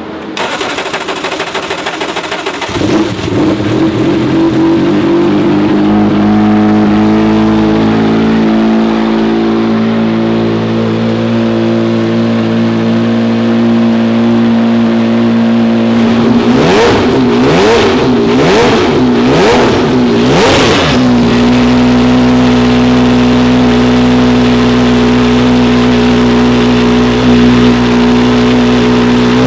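The Jaguar XJR-16's turbocharged 3.5-litre V6 racing engine runs at idle with the car stationary. Midway it is blipped up and down four times in quick succession, then settles back to a steady idle, and it is blipped again at the end.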